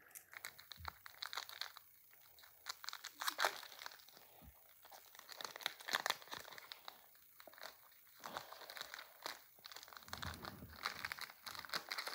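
Foil wrapper of a Pokémon card booster pack being crinkled and torn open by hand, with crackly rustling in irregular bursts every couple of seconds.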